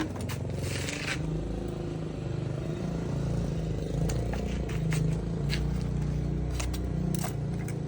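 Pressure-washer outlet hose and plastic fittings being handled: a scrape about a second in, then scattered clicks and knocks, over a steady low rumble.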